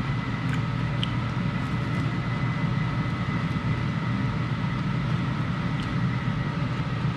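A running appliance fan: a steady whir with a low hum and two faint, steady high whines, with a few faint clicks over it.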